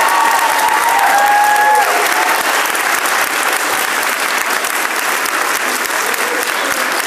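Audience applauding loudly and steadily, with a few held calls or whoops over the clapping in the first couple of seconds.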